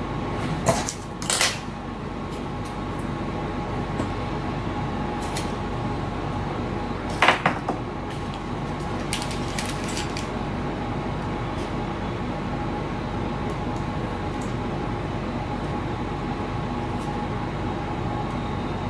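Clear tape being handled and wrapped around an RC servo at a workbench: a few short rasps, the loudest about seven seconds in, over a steady hum.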